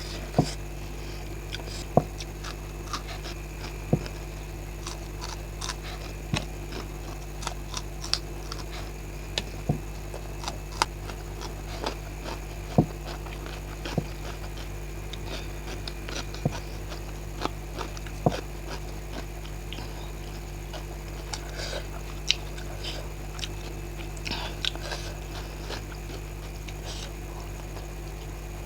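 A person eating boiled eggs with raw green chillies close to the microphone: sharp, crunchy bites and mouth clicks, the loudest about every two seconds through the first two-thirds, over a steady low hum.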